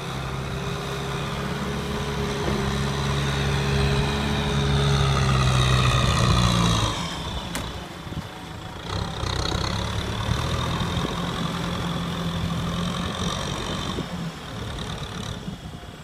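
Kubota M6040SU tractor's diesel engine working hard as it pushes through deep paddy mud. It grows louder over the first six seconds, drops off sharply about seven seconds in, then labours on more quietly.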